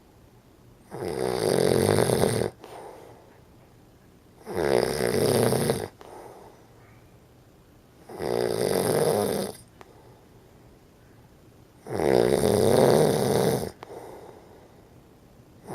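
Loud, regular snoring, one buzzy snore about every three and a half to four seconds, four times over, with quiet breaths between and another snore beginning at the very end.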